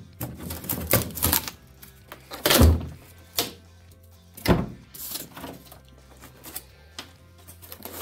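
Irregular crunching, rasping strokes of a drywall saw cutting through hardened Sculpt-a-Mold crust and foam board, the loudest about two and a half seconds in, over background music.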